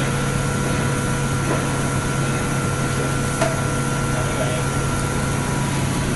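Steady machinery hum with a few faint steady whining tones above it, and a single light click a little past halfway.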